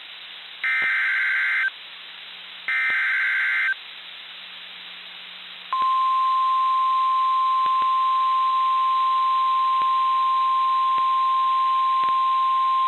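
NOAA Weather Radio Emergency Alert System signal over radio hiss: two harsh, warbling data bursts (the last of the three SAME header bursts), each about a second long with a pause of about a second between them. About two seconds after the second burst comes the steady, single-pitch warning alarm tone, which holds to the end. This alert code and tone introduce a flash flood warning.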